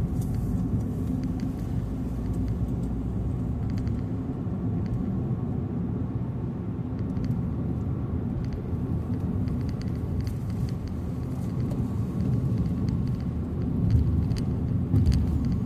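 Steady low rumble of a car driving on the highway, heard from inside the cabin: road and engine noise.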